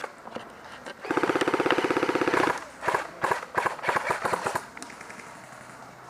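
Airsoft gun firing a rapid full-auto burst of about a second and a half, followed by a string of separate, irregular shots.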